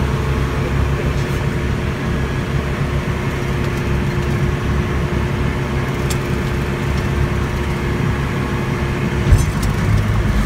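Boat engine running steadily, a deep hum, with a single sharp knock about nine seconds in.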